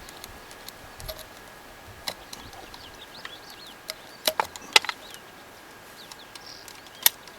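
Scattered sharp clicks and taps from hands and tools working on a generator's rubber fuel hose and its clips, with faint bird chirps in the background.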